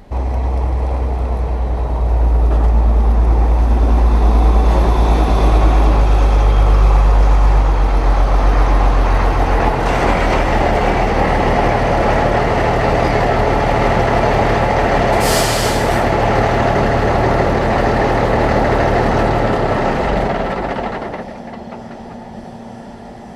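Large diesel engine running steadily with a deep hum, fading away about 21 seconds in. A short hiss sounds about 15 seconds in.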